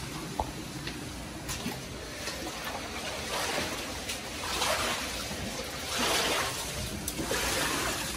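Footsteps wading through shallow floodwater on a flooded floor, a sloshing swish with each step, the steps coming a little over a second apart.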